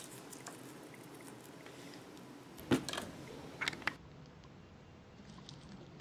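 Faint handling of a small water-filled jelly squishy toy in the fingers, with a few light clicks a little before three seconds in and again shortly before four.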